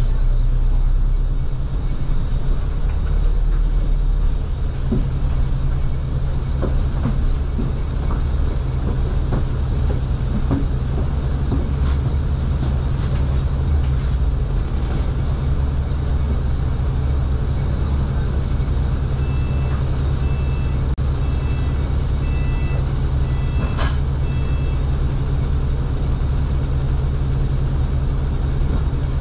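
A city bus running, heard from inside with a steady low engine drone and scattered rattles and knocks. About two-thirds of the way in, a string of short high beeps sounds for several seconds.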